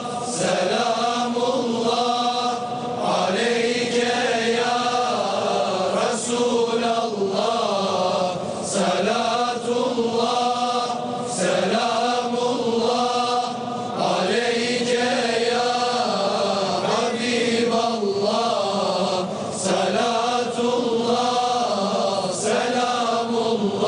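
Unaccompanied mevlid chanting: one voice sings long ornamented melodic lines in phrases of two to three seconds, with a short breath between phrases.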